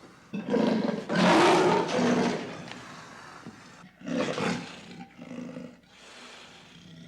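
Lion roaring: a call just after the start and a long, loud roar about a second in, then shorter, weaker calls around four and five seconds in that fade away.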